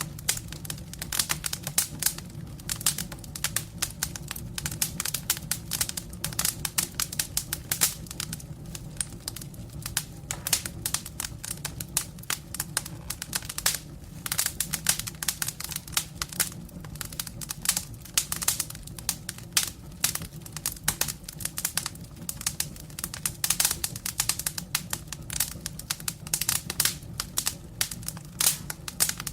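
Wood fire crackling: dense, irregular pops and snaps over a steady low rumble of the flames.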